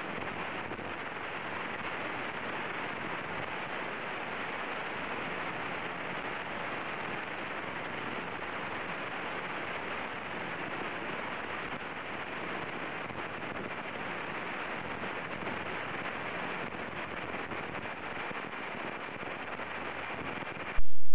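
Steady cabin noise of a Diamond DA40 single-engine plane in cruise flight: an even engine-and-propeller drone mixed with wind hiss, with little change in level. Right at the end it cuts abruptly to a much louder noise.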